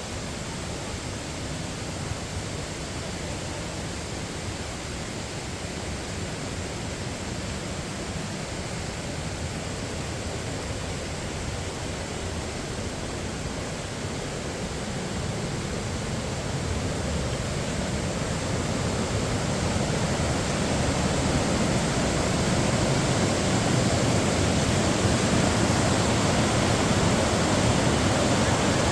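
Steady rush of falling water from a waterfall or river, growing gradually louder through the second half.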